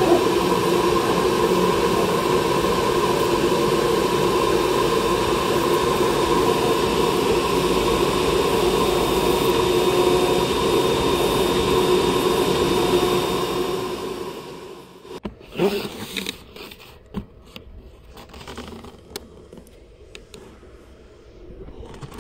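Flatbed CNC cutting machine running steadily as it cuts corrugated cardboard: a loud, even mechanical drone with a faint high tone. About fourteen seconds in the machine noise dies away, and a cut corrugated cardboard box is handled with scattered scrapes and knocks.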